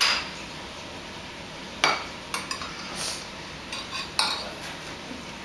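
Eating utensils tapping and clinking against plates and bowls: a scatter of sharp clicks, the loudest right at the start, about two seconds in and just after four seconds, some with a brief ring.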